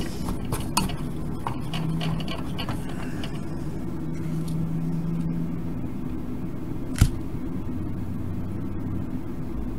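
Small clicks and taps of a soldering iron and tweezers working on LED leads at a workbench, over a steady low background hum; one sharper click about seven seconds in.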